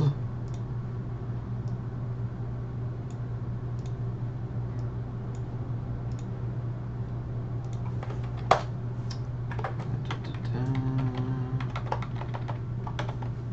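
Computer keyboard keys clicking sparsely and irregularly during text editing, with one louder click about eight and a half seconds in, over a steady low hum.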